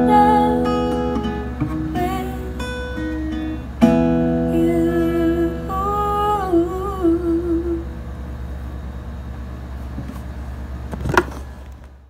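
Acoustic guitar strumming closing chords and letting them ring, with a voice joining in a short wavering phrase about halfway through; the music then fades. A single knock sounds near the end.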